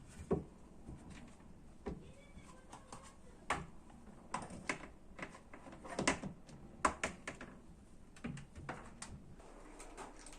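Scattered light knocks and clicks of objects being handled and set down, about a dozen irregular taps with no steady rhythm.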